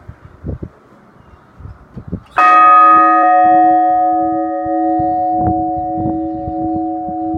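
A large Russian church bell struck once by its clapper about two and a half seconds in, then ringing on with a steady, many-toned hum that slowly fades. Faint low knocks come before the strike and continue under the ringing.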